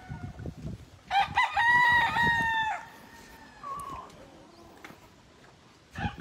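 Gamefowl rooster crowing: one long crow lasting nearly two seconds, then a short faint call a little later, and another crow starting right at the end.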